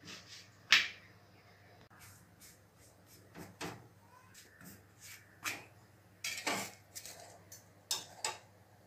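Scattered light knocks and clicks of cooking a roti: the flatbread handled on an iron tawa, and metal tongs clicking as it is turned over the gas flame, with two quick clicks near the end.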